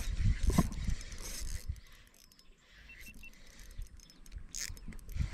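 Spinning reel being cranked with light metallic clicking as the lure is retrieved. Low thumps and rumble from rod handling come in the first second or so, and the sound quietens after that.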